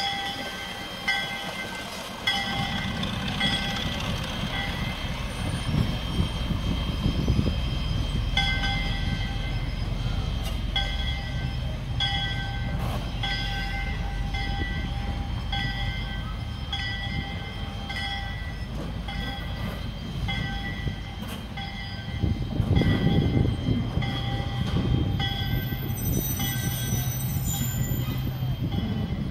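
Locomotive bell ringing about once a second as a short train pulls away. Under it is the low rumble of the train's engine and wheels on the track, which starts a couple of seconds in and grows louder near the end.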